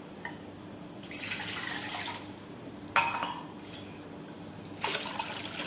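Water poured from a tumbler into a kadai of rasam, a pour lasting about a second, followed by two short sharp knocks or splashes, one about three seconds in and one near the end.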